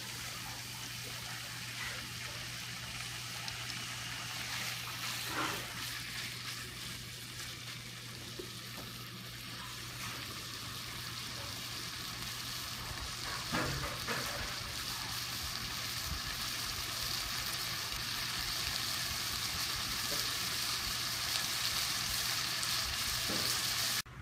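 Meat and onions in red pepper sauce sizzling as they stir-fry in a nonstick frying pan, a steady frying hiss. Three brief clicks of the tongs against the pan come through the sizzle.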